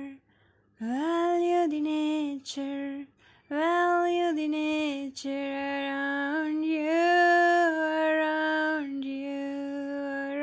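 A woman singing slowly and unaccompanied in long, held notes, with short breaths between phrases, just under a second in and about three seconds in.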